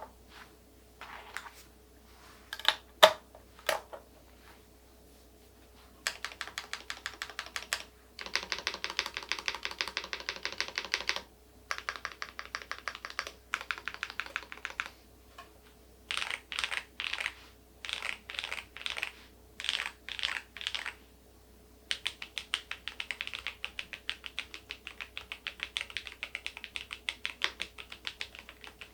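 Typing on the KEYSME AIM04 HE aluminium keyboard with magnetic switches: a few separate keystrokes, then fast runs of typing in stretches broken by short pauses, turning into continuous typing near the end.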